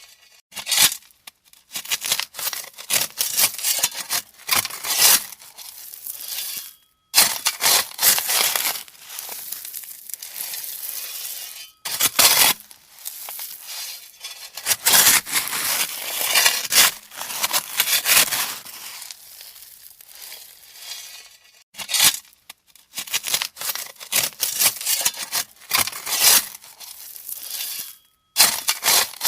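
Steel shovel digging into gravel: a run of gritty crunching scrapes, one scoop after another, with short pauses between them.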